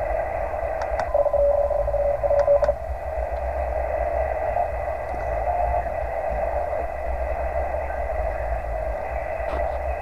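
Hiss and band noise from an HF transceiver's speaker as it is tuned across a quiet amateur band, with a faint steady high whistle. About a second in, a steady lower tone sounds for about a second and a half.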